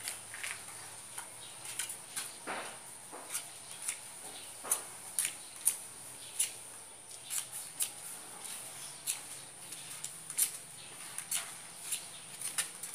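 Irregular light clicks and a few short squeaks of PVC pipe and plastic fittings being handled and worked together by hand, over a steady high-pitched hiss.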